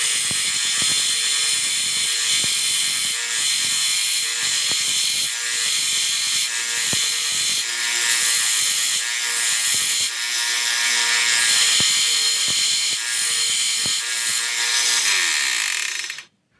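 Power tool grinding a point onto a steel keystock screwdriver shank: a steady, loud, hissing grind with high ringing tones and small scattered clicks. It cuts off abruptly near the end.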